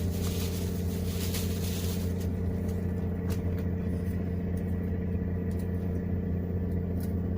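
Boat engine running steadily with an even, low drone, and a few faint clicks over it.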